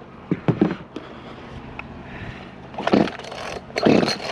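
Handling an Echo chainsaw: a few sharp clicks and knocks, then two short rasping scrapes near the end.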